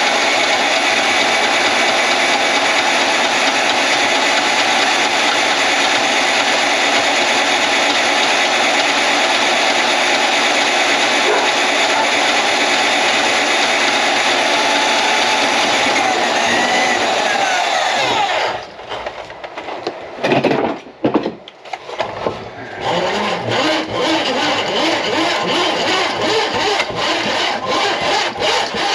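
Drain-cleaning machine running steadily on a grease-clogged kitchen drain line, its motor winding down in pitch and stopping about 18 seconds in. After a short pause, a fast rhythmic scraping starts about 23 seconds in.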